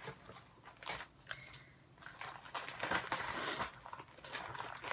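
Rustling and handling noises: a few short clicks, then a longer rustle about two seconds in, as a stitching project is taken out and handled.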